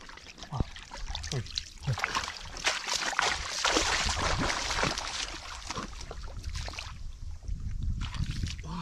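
Shallow muddy water splashing and sloshing as a person wades and kicks through it, loudest around the middle.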